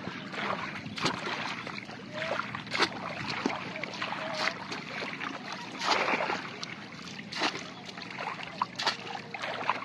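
Shallow water splashing and sloshing as a bamboo polo trap is pushed down into ankle-deep flood water again and again while wading, with a sharp splash about every second or two.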